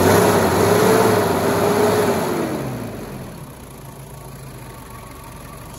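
A 4WD's engine revved high during a jump-start, held up for about two seconds, then dropping back to a steady idle.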